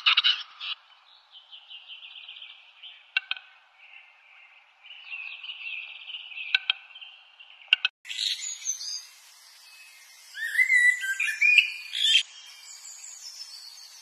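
A male western capercaillie's display song: a burst of rapid clicking, then a scratchy, rasping phrase broken by a few sharp clicks. About eight seconds in, this gives way to the chirps and twittering whistles of small birds.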